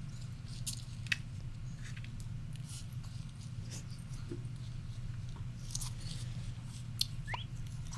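Soft eating sounds: a person chewing food, with scattered small clicks of a fork over a steady low hum, and a brief rising squeak near the end.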